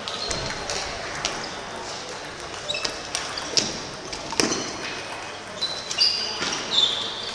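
Table tennis balls clicking off bats and tables in a large, echoing sports hall: many sharp ticks at irregular intervals from the rally and from neighbouring tables, with short high squeaks over a murmur of voices.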